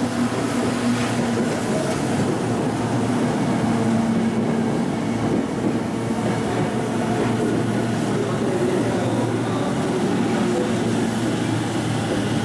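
Tokyo Metro Tozai Line commuter train pulling into the platform, its wheels rolling on the rails with a steady hum.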